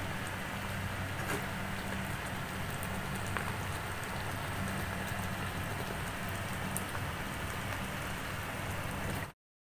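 Creamy buttermilk sauce with pork pieces sizzling and bubbling in a steel wok: a steady crackling hiss with scattered small pops over a steady low hum. It cuts off abruptly near the end.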